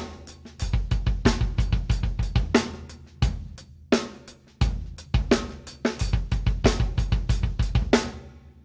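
Rock drum-kit groove with a swung feel: rapid heel-toe double strokes on the bass drum from the pedal, under snare backbeats and cymbals. The playing stops near the end and the kit rings out.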